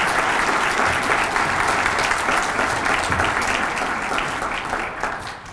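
Audience applauding, a dense patter of many people clapping that fades near the end.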